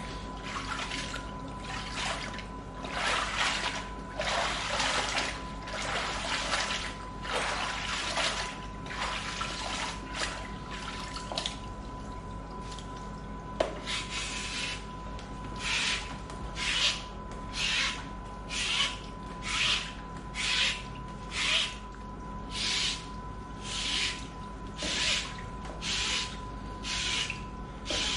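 Wet climbing rope being pulled through a rope brush over a tub of water, the brush wiping the water out of the rope so it swishes and drips back into the tub. After about 12 seconds it settles into short, regular swishes about one a second as the rope is drawn through hand over hand.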